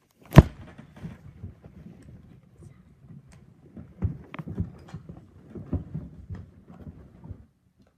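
Handling noise close to the microphone: a loud knock about half a second in, then several seconds of rustling and light bumps, cutting off suddenly near the end.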